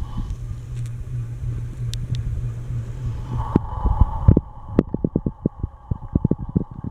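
Encon Casanova ceiling fan running: a steady low motor hum that drops away about halfway through, followed by irregular low thumps of air gusting across the microphone.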